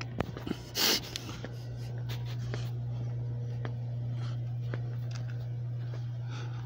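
Steady low hum, with scattered faint clicks and a short rustle about a second in from the phone being handled.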